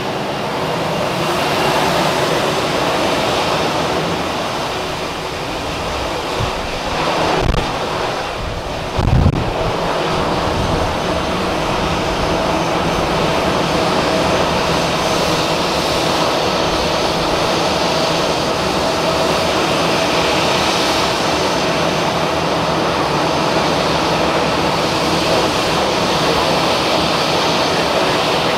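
Jet engines of an Airbus A320-family airliner running steadily at low power as it turns and lines up on the runway, a constant whine over a rumble. There are two brief low thumps a little under a third of the way in.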